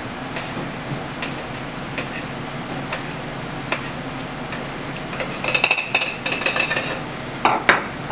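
Muddler mashing lemon and blueberries in a metal cocktail shaker tin: single knocks about once a second, then a quick run of clinks with a metallic ring. Near the end come two louder knocks as the tin is set down on the bar.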